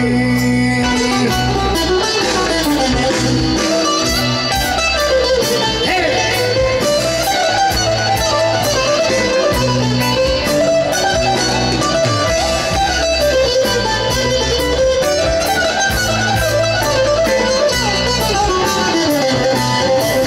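Live band playing an instrumental interlude of Greek popular song: a plucked-string lead melody, bouzouki and guitar, winding up and down over bass, keyboard and a steady drum beat.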